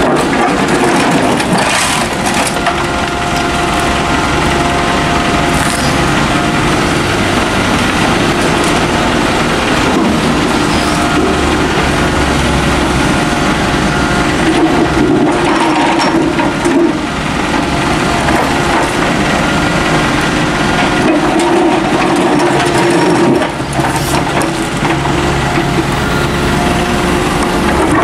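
Volvo mini excavator's diesel engine running steadily while it works, with the bucket scraping and crunching through dirt and stones now and then.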